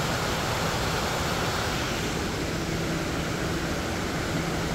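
Steady rush of the Fall Creek waterfall and rapids far below in the gorge, an even, unbroken roar of falling water.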